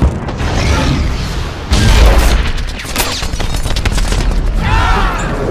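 Film battle soundtrack of an air raid: heavy explosions and rapid gunfire. The biggest blast comes a little under two seconds in.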